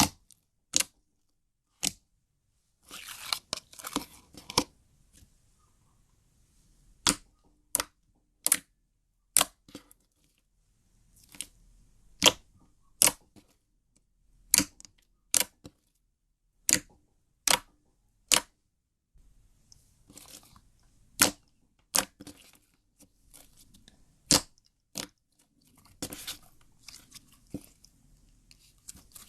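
Slime being squeezed and worked by hand, giving a string of sharp pops and clicks from air pockets bursting, irregularly spaced and sometimes in quick pairs, with soft squishing in between.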